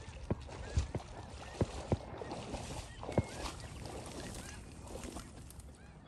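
Distant waterfowl calling faintly over the marsh, with a few sharp clicks and knocks of movement and handling close by.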